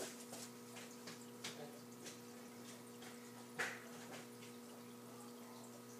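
Quiet room with a steady electrical hum and a few faint scattered clicks and taps, one louder tap about three and a half seconds in.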